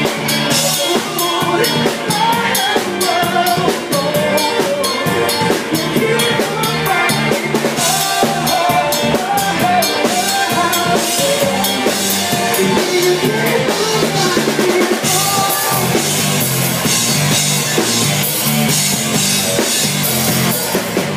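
Live rock band playing loudly, with busy drum-kit playing over bass, electric guitar and keyboard.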